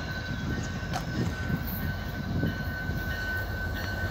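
Two GO Transit MP40PH-3C diesel locomotives approaching at the head of a passenger train: a steady low rumble of engines and wheels.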